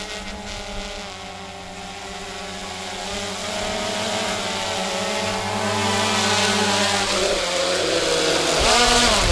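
A motor running steadily and growing louder, with its pitch swooping down and back up briefly near the end.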